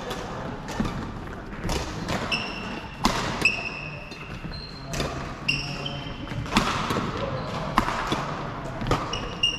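Badminton rally: sharp racket hits on the shuttlecock about once a second, with short high squeaks from court shoes on the wooden floor, echoing in a large hall.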